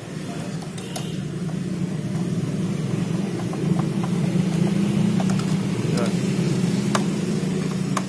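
A steady low motor drone, a little louder in the middle, with a few light clicks of screwdriver shafts against a steel shield plate.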